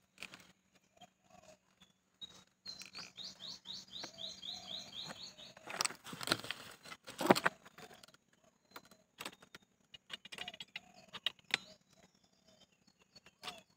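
A small bird calls a quick run of rising chirps, about four a second, for a couple of seconds. A little later comes a rustle of handling noise, then a single sharp knock, the loudest sound, as the scoped rifle is swung.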